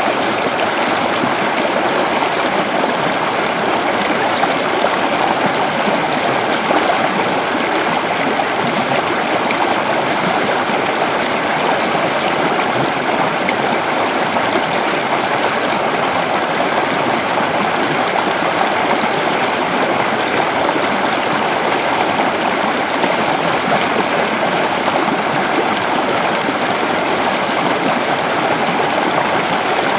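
Water flowing steadily, an even, unbroken rush with no changes.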